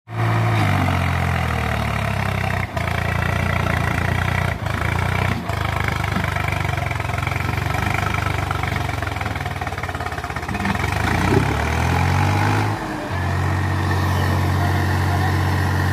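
Swaraj tractor's diesel engine running hard while hauling a heavily overloaded sugarcane trolley. The engine note dips briefly a few times early on, wavers up and down in pitch about two-thirds through, then holds steady.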